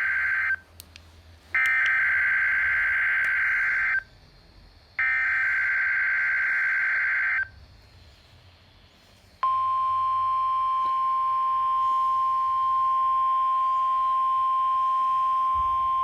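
Emergency Alert System SAME header on NOAA Weather Radio: three bursts of screechy digital data tones, each about two and a half seconds with a second's gap, the first already under way. From about nine and a half seconds in comes the steady single-pitch 1050 Hz weather alert tone. The sequence is a Required Weekly Test of the station's alarm signals.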